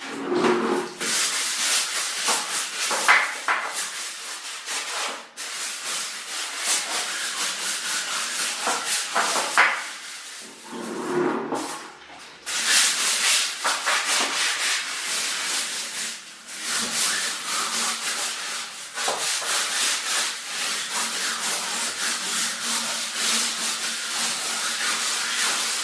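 A stiff scrubbing brush scrubbing a bathroom surface in quick back-and-forth strokes, with a few brief pauses.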